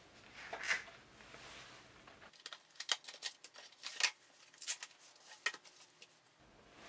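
Cardboard packaging handled on a tabletop: a soft sliding brush near the start, then a string of sharp little taps and clicks as the card boxes are set down and picked up.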